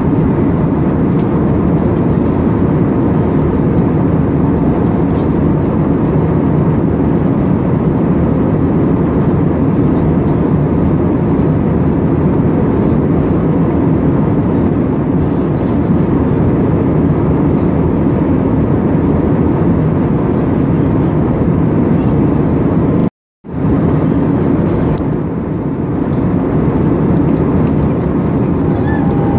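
Jet airliner in flight: a steady, loud, even engine rumble that cuts out completely for a moment about three-quarters of the way through, then carries on a little quieter.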